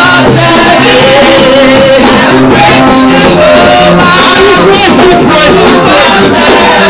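Upbeat gospel praise music with group singing, and tambourines being shaken along with the beat.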